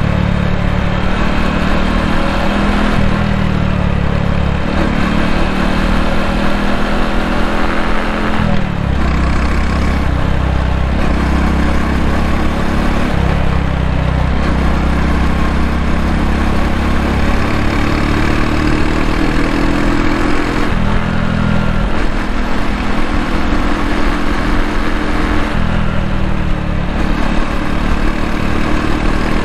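Honda Cross Cub's single-cylinder four-stroke engine running while riding, its note stepping up and down in pitch several times as speed changes, over a steady rush of road and wind noise.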